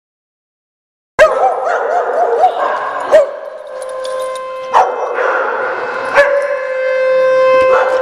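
A group of dogs barking and howling together, set off by a warning-siren test. It starts abruptly about a second in, with sharp barks standing out over the held howls.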